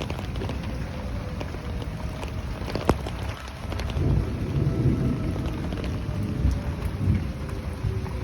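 Steady rain with uneven low rumbling from about four seconds in, and a tornado warning siren faintly winding down in pitch behind it. A single sharp click just before the three-second mark.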